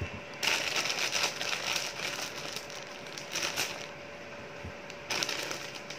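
Thin plastic rustling and crinkling in several short bursts as a gloved hand handles slices of soft white bread.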